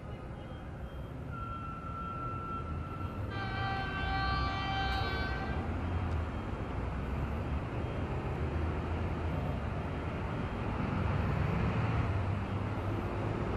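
ЭП1М electric locomotive sounding its horn as it approaches: a single high steady note for about two seconds, then a louder chord of several tones together for about two seconds. Under it, the low rumble of the approaching train grows louder.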